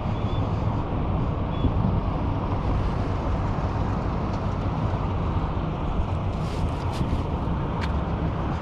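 Steady low rumble of street traffic, with a few faint ticks late on.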